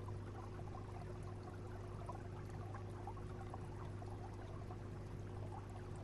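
Aquarium water circulation: a steady low pump hum with water trickling and bubbling over it.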